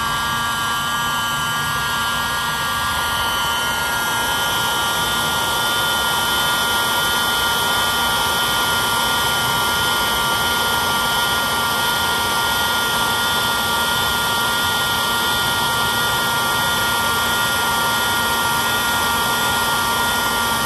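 Electric heat gun running, its fan blowing hot air with a steady motor whine that settles to a constant pitch within the first second. It is heating adhesive heat-shrink tubing over a soldered wire joint.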